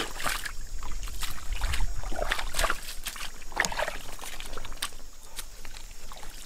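Legs wading through thick mud and muddy water: irregular sloshing and squelching as each step is pushed through and pulled out of the sludge.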